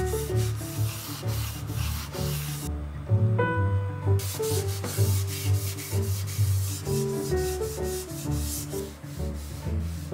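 Paper towel rubbing a thin coat of cooking oil onto the bare cast-iron rim of an enamelled pot and lid: dry, scratchy wiping strokes that pause for about a second and a half around three seconds in, over soft background music.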